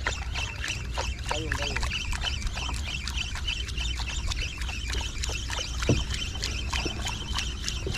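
Sea water lapping and splashing around a small wooden boat, with many small knocks and a steady low rumble underneath.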